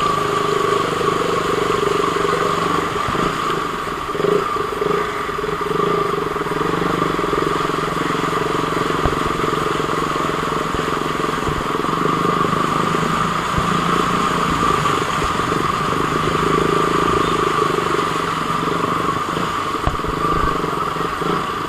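KTM single-cylinder motorcycle engine running at a steady, even speed.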